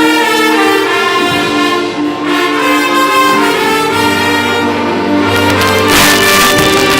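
An orchestra playing, with brass instruments carrying held notes that change pitch from chord to chord. About six seconds in, percussion strikes come in.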